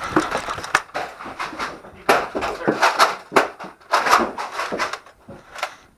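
A person panting hard close to the microphone: a string of irregular breathy puffs, with scuffing and a few sharp clicks mixed in, fading near the end.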